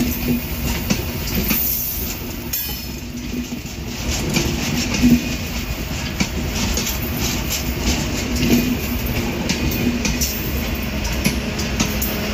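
Broad-gauge CRRC passenger coaches of an intercity express rolling past on a curve, with a steady rumble and wheels clattering over the rail joints. The sound gets louder about five seconds in.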